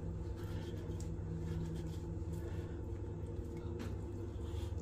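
Steady low background hum with a few faint scrapes of a knife slicing fish flesh along the ribs of a sea catfish.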